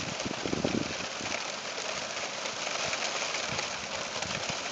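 Steady rain falling during a thunderstorm, an even hiss, with a few low thumps in the first second.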